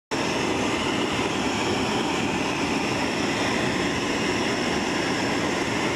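Gas burners running with a steady roar: a torch flame playing on a blown-glass piece, with a glory hole furnace behind it.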